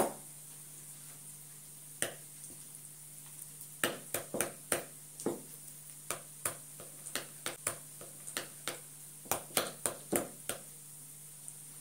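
Metal spoon stirring a thick paste of curd, ground spices and butter in a bowl, tapping and scraping against the bowl in quick irregular clicks. There are single taps at the start and about two seconds in, then a dense run from about four seconds in until near the end.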